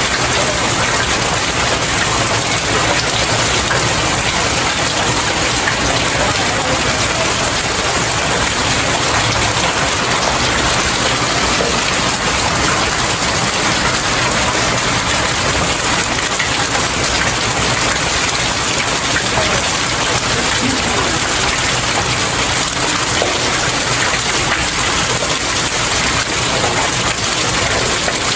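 Steady rain falling on stairs, a dense even patter that neither builds nor fades.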